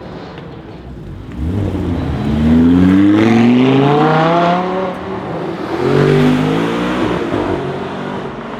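Lamborghini Huracán's V10 accelerating hard: the engine note climbs for about three seconds, dips briefly at an upshift about five seconds in, climbs again, then fades as the car pulls away.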